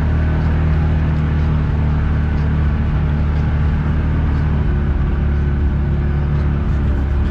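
Off-road vehicle engine idling steadily close by, a low, even hum.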